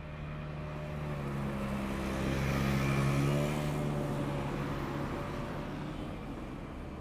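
A motor hum with a steady pitch that swells to a peak about three seconds in and then fades, like a vehicle passing by.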